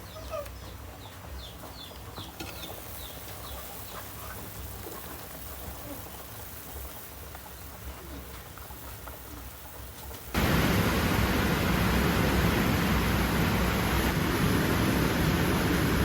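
Faint bird chirps over quiet ambience, then about ten seconds in an abrupt switch to a loud, steady hiss of heavy rain.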